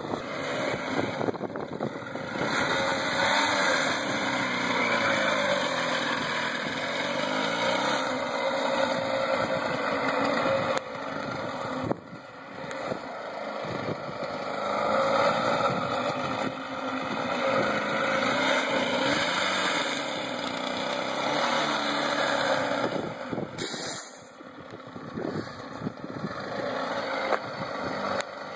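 Small 98cc two-stroke Flymo lawnmower engine driving a homemade mobility scooter, its pitch rising and falling as the throttle is worked. The revs drop away briefly twice before picking up again.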